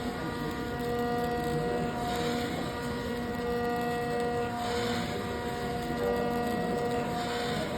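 Concrete 3D-printing machinery running: a steady machine hum with a pitched whine over a noisy rumble from the mixing and pumping equipment.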